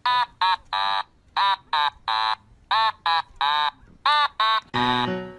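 A short meow-like call repeated over and over in a rhythm, about two a second, each call the same arched pitch shape, as if one sample were being played as a tune. Music with a low bass line comes in near the end.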